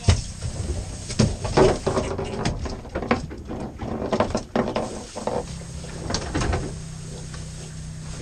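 Irregular knocks and clatter on a fibreglass boat deck. A low steady hum comes in about five seconds in.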